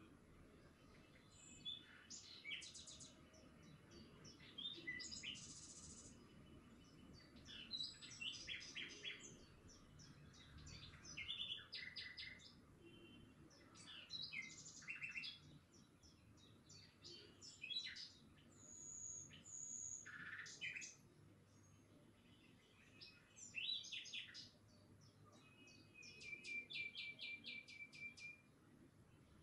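Small birds chirping, quietly, with many short calls, a few clear whistled notes and a rapid trill of repeated notes near the end.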